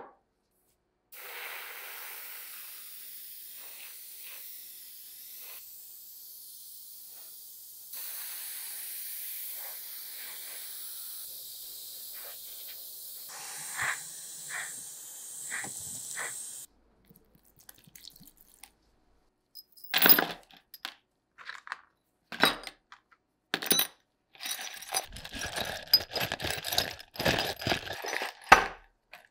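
Airbrush spraying paint onto a metal part: a steady hiss of air and paint for about fifteen seconds. Then a few separate sharp knocks, and a busy run of knocks and clatter near the end.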